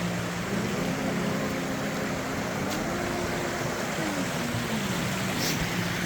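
Steady rush of river and waterfall water, with soft sustained background music whose notes rise slowly and then fall back down.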